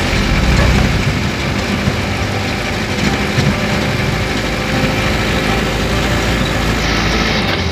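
Heavy truck engines running in road traffic, a steady low engine drone with noise from the road.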